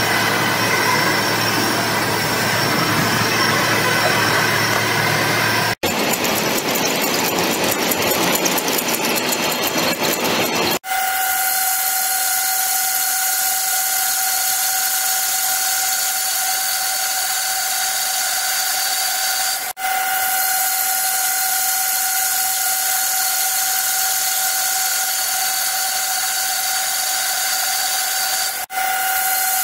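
Metal lathe cutting steel: steady machining noise with a high, steady whine over a hiss. The sound breaks off and changes abruptly several times, about 6, 11, 20 and 29 seconds in.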